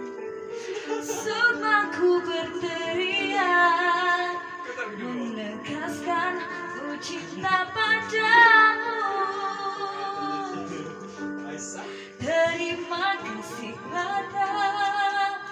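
A woman singing a slow song with vibrato on long held notes, over steady instrumental accompaniment. The voice breaks off briefly about twelve seconds in, then carries on.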